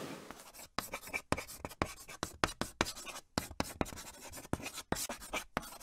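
Chalk scratching on rough pavement as words are written: a quick run of short, sharp strokes, about four a second, that cuts off abruptly near the end.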